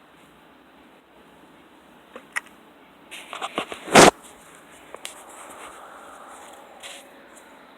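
Handling noise close to the microphone: a few sharp clicks, a quick run of clicks, then one loud knock about four seconds in, followed by a faint hiss.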